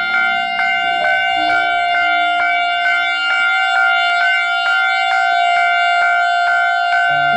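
Electronic railway level-crossing warning bell ringing in a steady run of evenly repeated strikes, with soft background music underneath.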